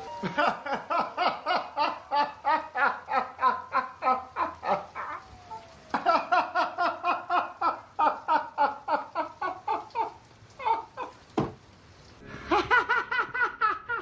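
Hearty laughter: long runs of rapid, even 'ha-ha-ha' pulses, about four a second, breaking off twice, with a single sharp click during the second pause.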